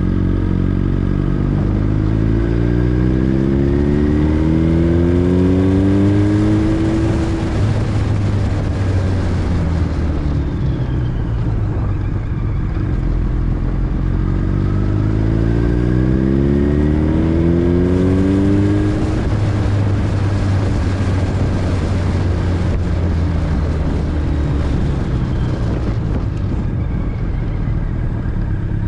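Motorcycle engine pulling up through the revs twice, its pitch climbing steadily for about six seconds from about a second in and again from about fourteen seconds in, then dropping back and running steadily. A constant rush of wind noise on the microphone runs underneath.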